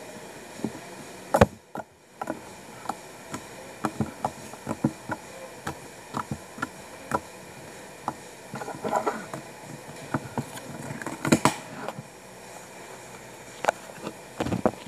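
Green slime being squeezed, stretched and poked by hand, giving irregular small clicks and pops, several a second. There is one louder pop about a second and a half in and denser runs of squelching pops later on.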